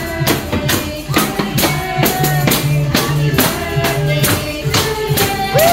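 Hand drums and tambourines beaten in a steady, fast rhythm of about three beats a second, with some pitched sound over the beat.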